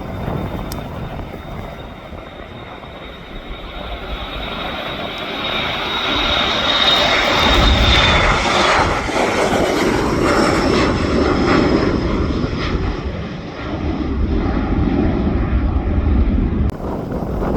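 An airliner's engines passing, with a steady high whine and a broad roar that builds to its loudest about halfway through and then eases off. Wind buffets the phone's microphone underneath.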